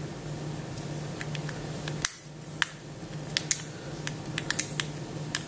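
Light metallic clicks and taps as the sheet-metal cover plate of a small AC synchronous gear motor is fitted over its gears by hand, several coming in quick runs from about two seconds in, over a low steady hum.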